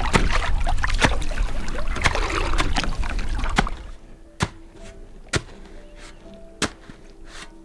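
A shovel blade used as a paddle, stroking through water and broken lake ice beside a small rowboat: splashing with sharp knocks. About four seconds in this drops away to soft background music, with a sharp knock roughly once a second.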